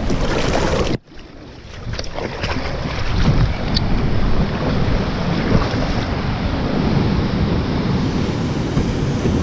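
Wind buffeting the microphone over sea waves slapping around a kayak and breaking against rocky cliffs, in choppy water where waves rebound off the cliff face. About a second in, the sound drops away sharply and stays much quieter and duller for about a second before the wind and surf return.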